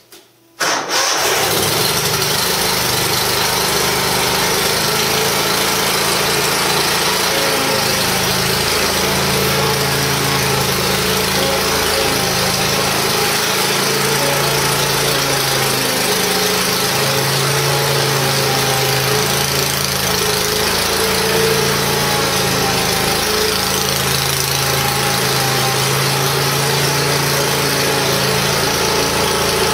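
A 2004 Exmark Lazer Z zero-turn mower's 23 hp Kohler Command V-twin engine starts about half a second in and then runs steadily, while the mower is driven slowly about.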